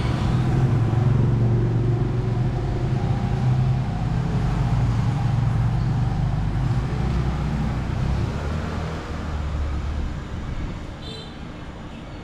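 A motor vehicle's engine running close by in the street, a steady low rumble that drops in pitch and fades away over the last few seconds.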